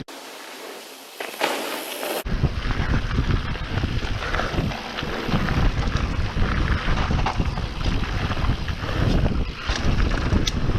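Wind buffeting a helmet-mounted action camera's microphone, with rumbling tyres and rattling from a mountain bike riding down a trail. For the first two seconds there is only a quieter hiss without the low rumble; then the loud rumble cuts in abruptly.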